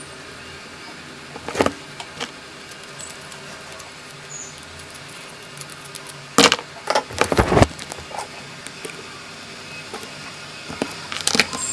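Wires and small hand tools being handled on a workbench during soldering work: scattered clicks, and a burst of metallic clinking and rattling from about six to seven and a half seconds in, over a steady faint hiss.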